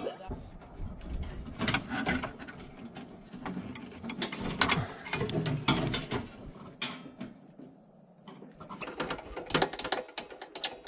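Clicks and scrapes of a screwdriver and wire against the metal breaker panel and its neutral bus bar as a neutral wire is landed on the bar, ending in a quick run of rapid clicks near the end.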